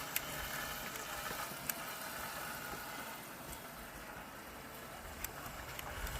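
Small electric motor of a toy RC boat running steadily and faintly out on the water, with a few light clicks.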